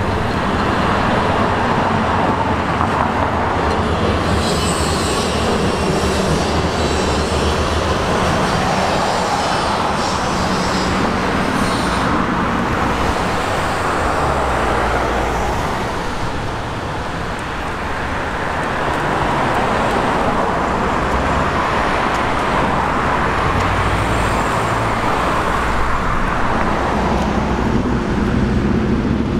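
Steady city street traffic, with cars and trams passing, dipping briefly about halfway through.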